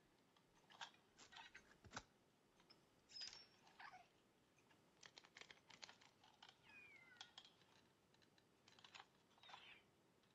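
Near silence: faint scattered clicks in small clusters, with two faint short squeaky glides, one falling around the middle and another near the end.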